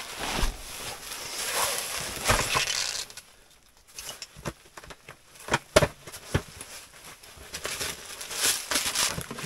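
Someone rummaging through a fabric bag: rustling of cloth and packed things for about three seconds, a short pause, then scattered clicks and knocks of items being handled, with more rustling near the end.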